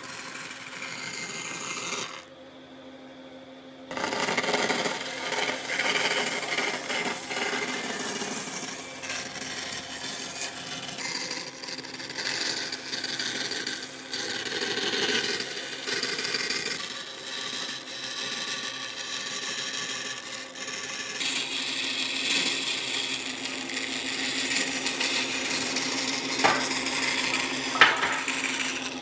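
Hand tools working wood: continuous scraping and rubbing, which drops away for about two seconds near the start.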